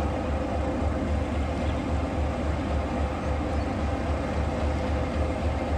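Class 205 'Thumper' diesel-electric multiple unit's English Electric four-cylinder diesel engine idling with a steady, pulsing low throb.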